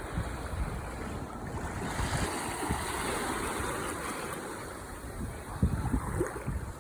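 Ocean waves washing onto the shore, one wash swelling and ebbing about two to four seconds in, with gusty wind rumbling on the microphone.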